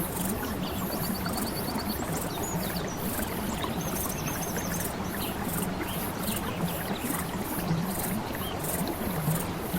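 Steady flowing-water ambience, an even wash of sound. A high pulsing hiss repeats a few times a second, and short high trills come about a second in and about four seconds in.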